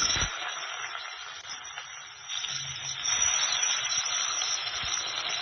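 Fennel seeds sizzling in hot oil and ghee, a steady frying hiss that grows louder about two seconds in.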